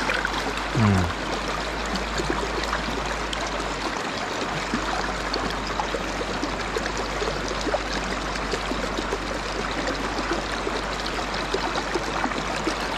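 Shallow mountain stream flowing over stones: a steady, even rush and trickle of water close by. About a second in, a short, low, falling hum from a voice.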